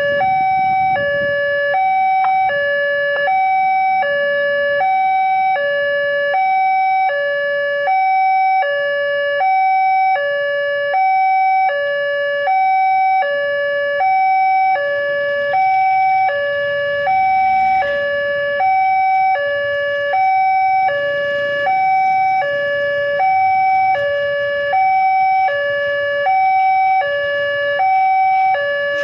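Railway level-crossing warning alarm sounding a steady two-tone high-low chime that repeats evenly, the signal that the barrier is down and a train is approaching.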